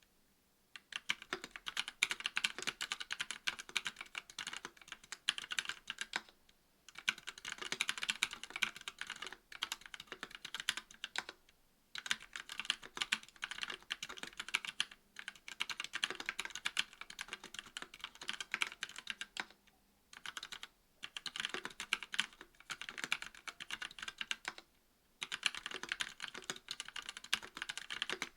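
Typing on a KBD67 V2 MKII mechanical keyboard with a brass plate, stock Kailh Pro Burgundy linear switches and GMK keycaps: rapid keystroke clacks in runs of several seconds, broken by a few brief pauses.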